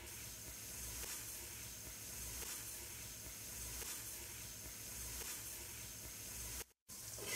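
Beef pieces frying in ghee with spices, a faint steady sizzle as they are stirred in the pot with a silicone spatula. The sound cuts out briefly near the end.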